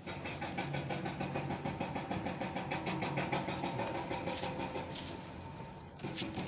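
An engine running with a fast, even pulse. It cuts in suddenly at the start.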